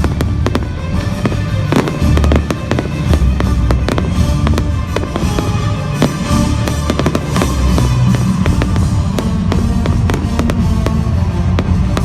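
Fireworks display: many rapid bangs and crackles of bursting shells, heard over a loud music soundtrack with a heavy bass beat.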